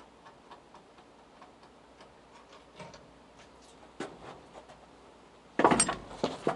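Faint, irregular clicking with no horn note, the repaired horn failing to sound when tried, then a loud knock or clatter about five and a half seconds in.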